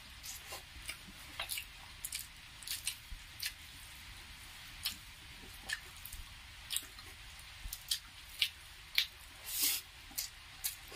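Wet eating-by-hand sounds: fingers squishing rice mixed with chicken gravy and mouths chewing, heard as short, irregular clicks and smacks.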